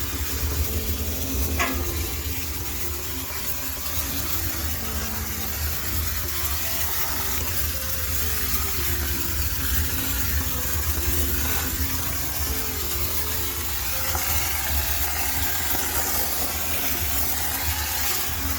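High-pressure steam sterilizer hissing steadily into a laundromat washing machine drum, over the low hum of the steam unit.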